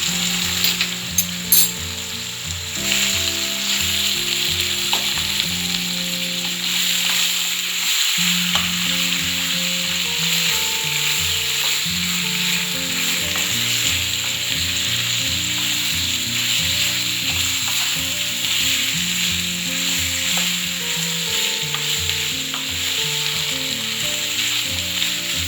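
Chicken livers and potato pieces frying in oil in a pan, a steady sizzle, with a few sharp ticks near the start.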